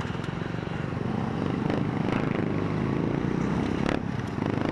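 A Suzuki Smash 115 underbone motorcycle's single-cylinder four-stroke engine running while riding, heard with road noise. It gets louder about a second in and dips briefly near the end.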